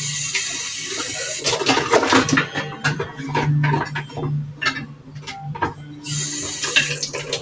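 Kitchen faucet running into a measuring cup, in two spells: one at the start lasting about a second and a half, and another about six seconds in. Short knocks and clatter come between them.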